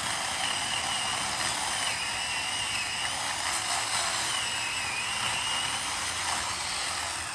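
Chainsaw running steadily as it cuts into a tree trunk: a dense, high whine that dips slightly in pitch a few times as the chain works through the wood.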